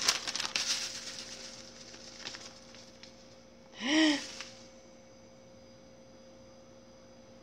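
Crinkling and rustling as grated coconut is sprinkled from its packet onto a cake, fading out over the first two seconds. About four seconds in, a woman makes one short wordless vocal sound whose pitch rises and then falls. After that there is only a faint steady hum.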